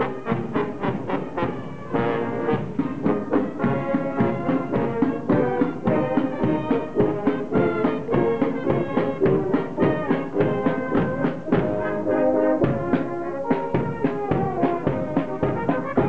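A marching brass band of cornets, euphoniums and tubas plays a march. A drum beats time about twice a second.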